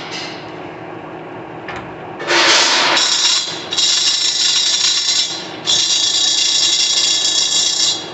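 1966 Poreba TR-70B engine lathe running at low spindle speed, with a steady mechanical hum. From about two seconds in, a much louder harsh, hissing grind from the machine comes in four long stretches, with short breaks between them.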